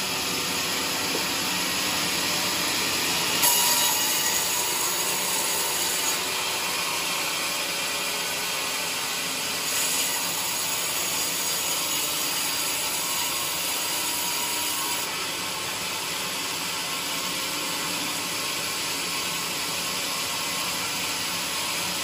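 Band sawmill blade sawing lengthwise through a bayur log: a steady, loud sawing noise over the machine's running hum. It turns brighter and hissier twice, around four seconds in and again from about ten to fifteen seconds in.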